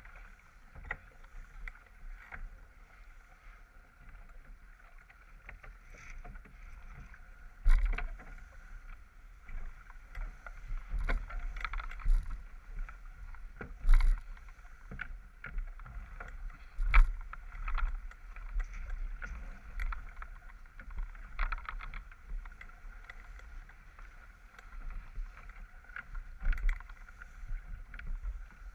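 Water rushing and splashing along a J/24 sailboat's hull under sail, heard from a camera mounted on the stern rail, with several loud thumps and a quick run of clicks a little past the middle.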